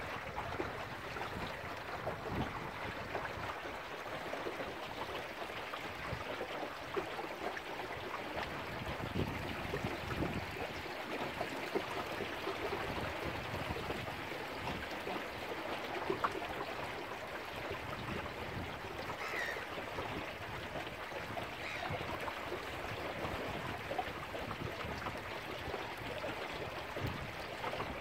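Water rushing and lapping along the hull of a small wooden sailing dinghy under way, a steady wash with small irregular slaps of chop against the bow.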